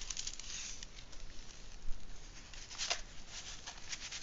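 Rustling and crinkling of a rolled diamond-painting canvas being unrolled by hand, with a few sharper crackles, the loudest about three seconds in.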